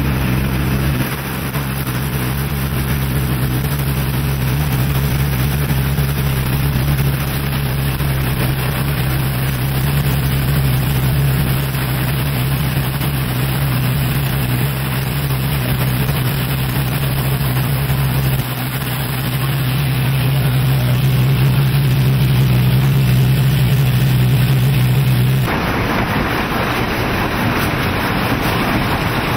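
Steam train running at speed: a steady mechanical rush with a constant low hum. About 25 seconds in, the sound changes abruptly to a brighter, rougher rushing noise.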